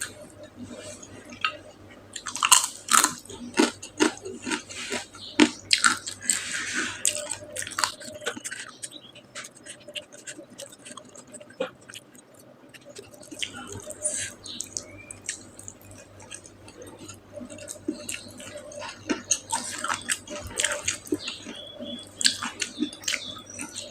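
Close-miked chewing and biting of a person eating, with many short wet mouth clicks and smacks. Busiest in the first third, quieter in the middle, and picking up again near the end.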